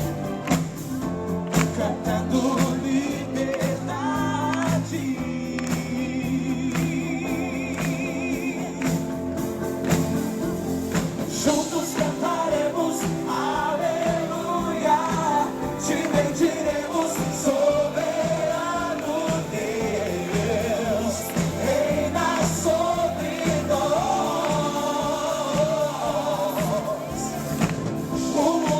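Live gospel worship music: a band with drums playing steadily, with singing coming to the fore about ten seconds in.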